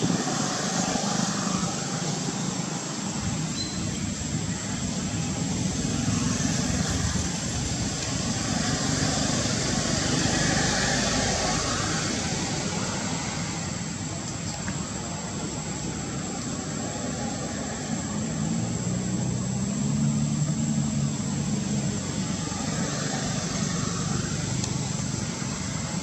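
Steady outdoor background noise with a distant vehicle hum, which strengthens a little in the later part.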